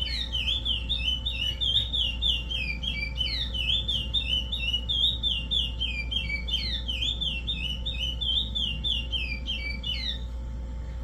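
Curió (lesser seed finch) singing the Paracambi song: a fast, unbroken run of clear whistled notes that breaks off about ten seconds in.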